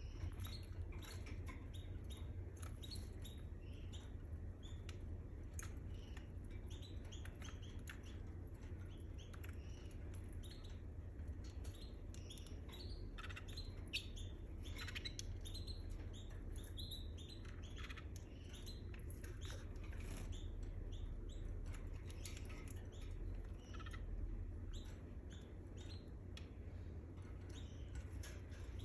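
Domestic canary singing: a continuous run of short, quick chirps and trilled notes, over a steady low hum.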